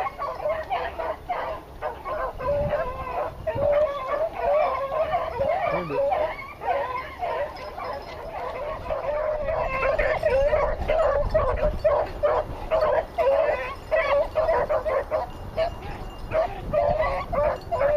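Several hunting dogs yipping and baying over and over on a rabbit hunt, the calls coming thick and overlapping throughout.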